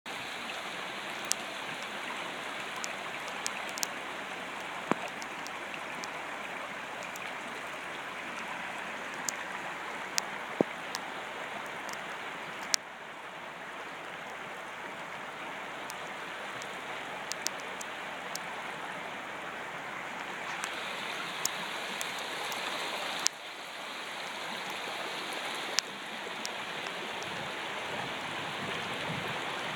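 Floodwater running in a shallow sheet over a road surface: a steady rushing hiss of flowing water, with scattered sharp clicks.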